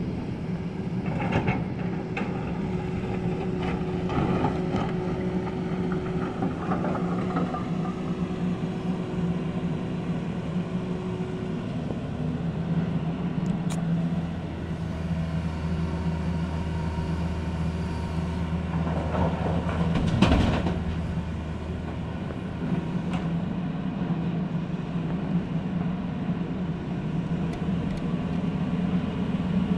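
Diesel engine of a crawler excavator running steadily as it digs rock to load a tipper truck, with knocks and clanks of the bucket against rock and one loud crash about twenty seconds in.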